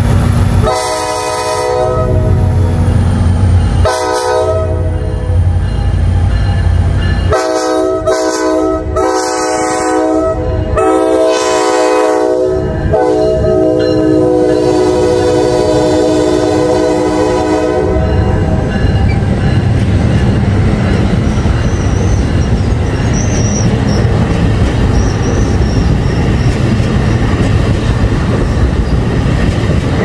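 NJ Transit ALP-45DP locomotive's unrestricted Nathan K5LA five-chime horn sounding a grade-crossing sequence: a short blast, a longer one, then long blasts running until about two-thirds of the way in. After that the train passes close by with a steady rumble and clatter of wheels on the rails.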